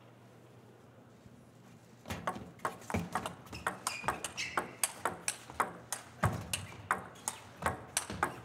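Table tennis rally: the ball clicks sharply off the rackets and the table at about three hits a second. The rally starts about two seconds in and keeps a quick, even rhythm, with a brief squeak near the middle.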